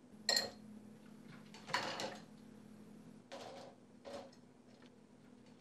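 Steady low electrical hum under about four short, soft knocks and rustles, the loudest near the start and about two seconds in.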